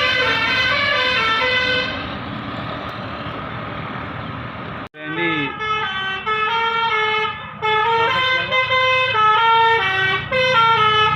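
Bus telolet 'basuri' musical horn playing a tune in held, stepped notes. About two seconds in the tune stops, leaving engine and road noise. The sound cuts out abruptly near the middle, then horn tunes play again in short phrases with brief pauses.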